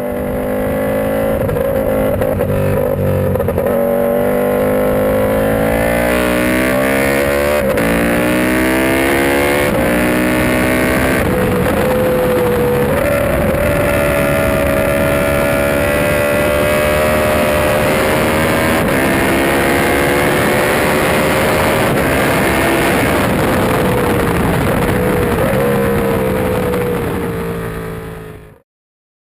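Motorcycle engine running at high revs, its pitch climbing and falling with sudden drops as the revs change. The sound fades in at the start and fades out just before the end.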